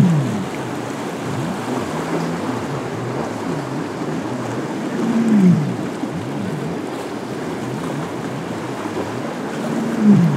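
Boat engines running through rough water, with waves and wind noise; a low engine tone swells up and falls off three times, about five seconds apart.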